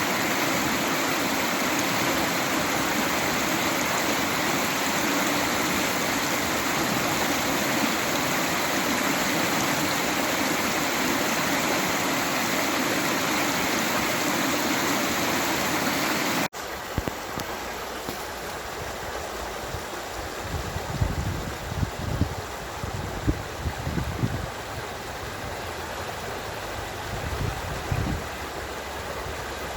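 A stream of running water, rushing loudly and steadily. About two-thirds of the way in it cuts suddenly to a quieter recording of flowing water, with irregular low thumps near the end.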